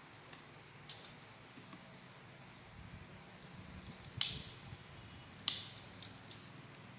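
Plastic parts of a Zoids Wild Liger model kit being pressed and snapped together by hand: a handful of sharp clicks, the loudest about four seconds in and another about a second later.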